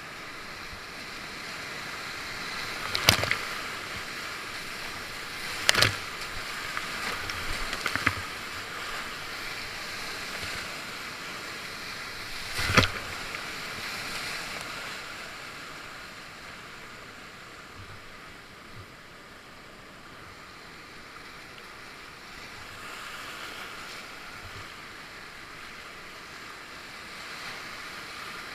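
Rushing whitewater around a kayak, a steady wash of river noise. It is broken by four sharp hits in the first half and eases off a little in the second half.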